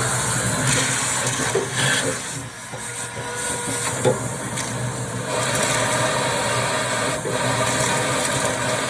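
Vacuum cleaner running steadily, sucking leftover wood pellets out of a pellet smoker, with a sharp click about four seconds in.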